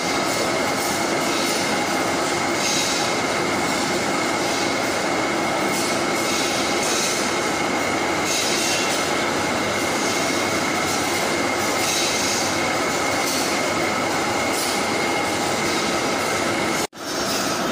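Steady, loud machinery noise with a constant high whine running through it. It breaks off for an instant near the end.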